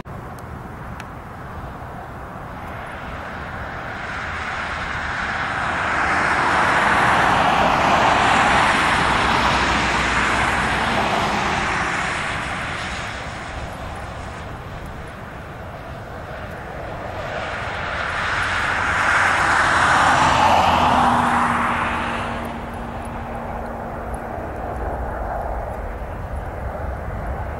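Boeing C-17 Globemaster III's four turbofan engines rushing as the jet passes low over the airfield. The noise swells twice to a loud peak, about a third of the way in and again about two-thirds in, and a faint steady hum appears near the second peak.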